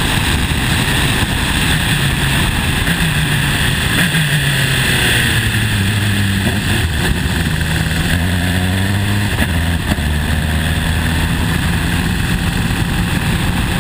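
Formula 3 Dallara-Volkswagen's four-cylinder engine heard onboard at low revs, its pitch dropping in steps as the car slows, under a steady rush of wind noise.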